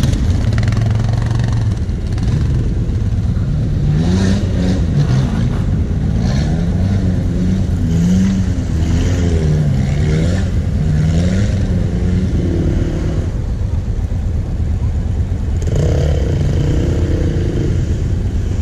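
A quad's engine running steadily at low revs. Over it, another off-road vehicle's engine revs up and down again and again, from about four seconds in to thirteen seconds and once more near sixteen seconds, like a vehicle working its way through the sand.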